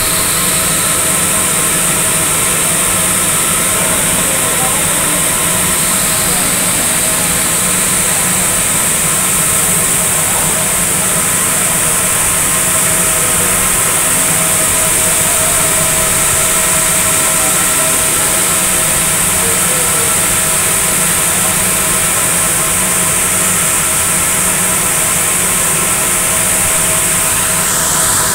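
Circular knitting machines running, a loud, steady mechanical whir with a strong even hiss.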